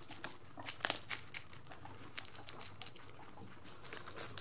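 Guinea pigs munching crisp lettuce: a quick, irregular run of small crunches and crackles as they bite and tear the leaves.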